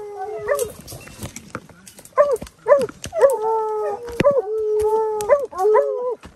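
Hunting hounds baying at a cornered jabalí: a long drawn-out bay, a short lull, then from about two seconds in a run of repeated bays and short yelps from more than one dog.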